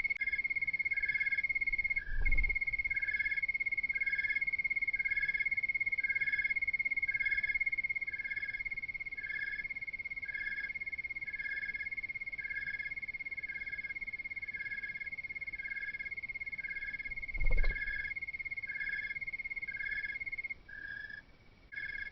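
Night-calling animals: a steady high trill with a pulsing chirp about twice a second under it. The trill drops out near the end. Two dull low thumps, one about two seconds in and one late on, are the loudest sounds.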